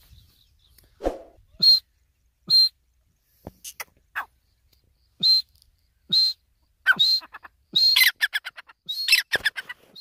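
Grey francolin (teetar) calling: short, sharp notes about once a second, breaking into quick runs of notes near the end.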